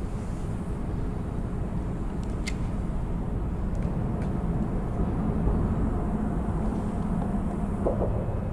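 Steady low rumble of traffic on the highway bridge overhead.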